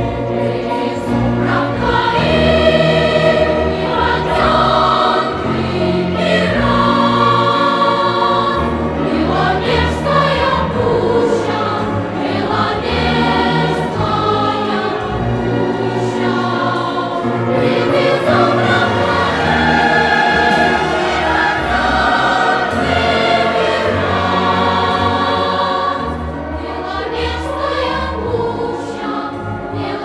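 Choral music: a choir singing long held notes over a low bass.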